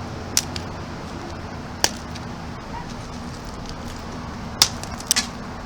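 A block of ice with toys frozen in it striking a hard surface: five sharp knocks, the loudest about two-thirds through, followed quickly by two more.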